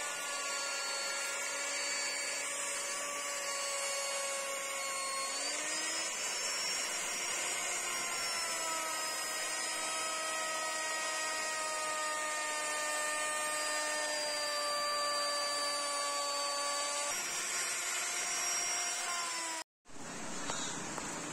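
Electric plunge router running at high speed while cutting along the curved edge of a hardwood door arch, its whine dipping and recovering in pitch a few times as the bit takes more or less wood. The sound cuts off abruptly near the end.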